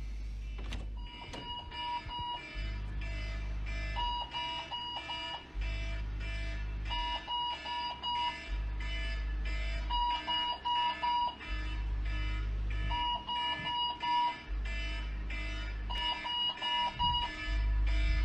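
Electronic wake-up alarm ringing: clusters of quick beeps alternating with a long deep bass tone that comes about every three seconds.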